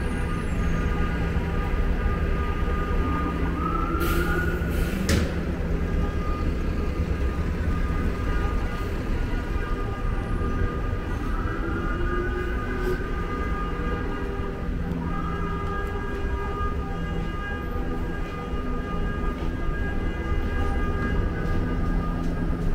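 Busy city street traffic: a steady low rumble with a constant engine hum, a few short rising whines from vehicles pulling away, and a couple of sharp clicks about four to five seconds in.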